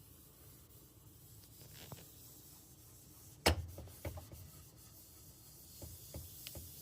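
Microfiber cloth wiping a computer monitor screen: a faint, soft rubbing. About three and a half seconds in comes a single sharp click or knock, the loudest sound, followed by a few light ticks.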